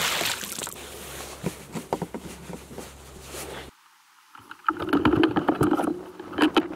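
A splash in lake water by the raft's bow, with droplets pattering down as it fades. After a short break, knocks and handling clatter on the raft deck over a steady low hum.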